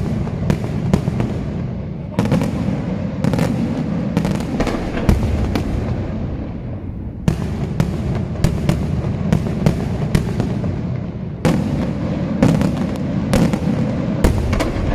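Daytime aerial fireworks: rapid, irregular bangs of bursting shells over a continuous low rumble of echoes, with fresh salvos starting about two, seven and eleven seconds in.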